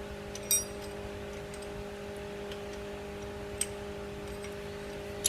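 Metal lathe running with a steady hum, with a sharp metallic clink about half a second in and a couple of lighter clicks later, as tools and fittings on the machine are handled.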